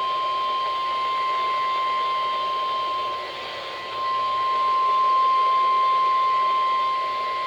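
NOAA Weather Radio warning alarm tone sounding from a Midland WR-100 weather radio: one steady, unbroken high tone, dipping briefly in level a little before the middle. It marks the activation of the Required Weekly Test.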